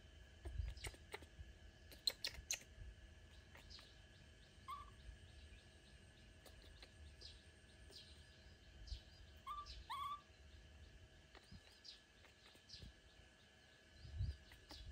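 Near silence: a faint steady hum, with a few faint short chirps about five and ten seconds in and a few light clicks about two seconds in.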